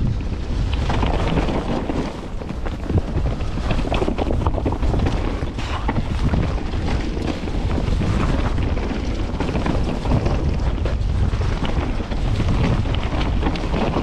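Mountain bike descending a dirt singletrack, heard as wind buffeting the microphone over a steady low rumble, with frequent small knocks and clatter from the bike over the rough trail.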